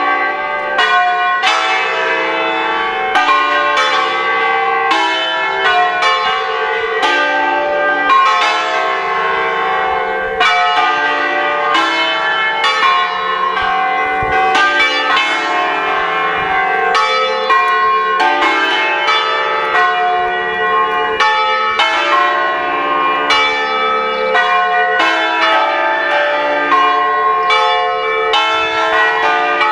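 Five Ambrosian-system church bells in D sharp, cast by A. Bianchi, swinging full circle together in a 'distesa' peal, their strikes overlapping in a continuous, loud ringing. The peal calls the faithful to the eve-of-feast mass.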